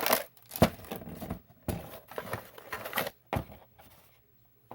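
Toy packaging being worked open by hand: irregular crinkling and sharp clicks of cardboard and plastic.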